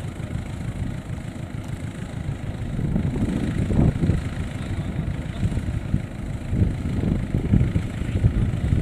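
Engine of a small farm tractor running steadily as it hauls sacks of rice across the field, a low rumble that swells louder around three to four seconds in and again near the end.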